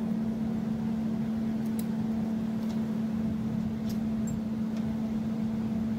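A steady machine hum holding one constant tone, with a few faint light metallic clicks as the golf cart's leaf spring is worked loose from the axle.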